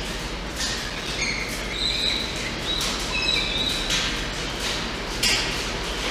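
Steady rain and wind noise on the wooden nest box, with several short, thin, high-pitched bird chirps between about one and three and a half seconds in.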